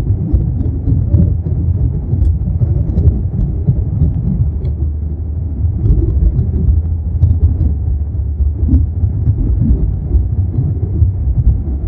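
Airliner cabin during takeoff: a loud, uneven low rumble of engines and airframe, with faint scattered rattles.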